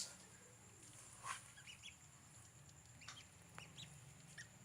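Newly hatched incubator chicks peeping faintly: a few short, high chirps scattered through, with a couple of soft taps.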